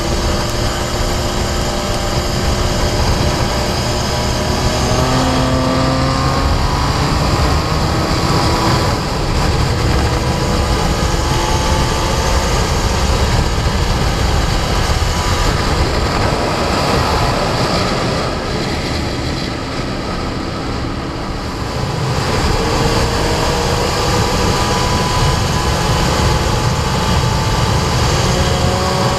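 Sport motorcycle engine pulling hard at track speed, its pitch rising again and again as it climbs through the gears, under heavy wind noise. About two-thirds of the way in it eases off and goes quieter for a few seconds, then pulls again.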